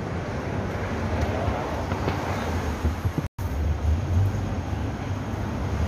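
City street noise: a steady low rumble of road traffic with general street bustle. It cuts out for an instant just past halfway.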